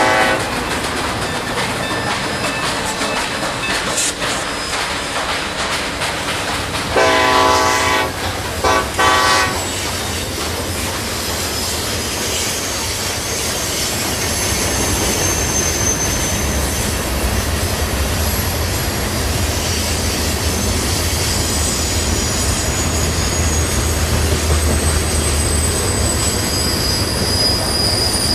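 Model Santa Fe diesel locomotive running toward the camera, with a diesel horn sounding: a brief blast right at the start, then a longer blast about 7 seconds in followed by two short toots. Its running rumble grows from about halfway through, with high thin wheel squeal toward the end.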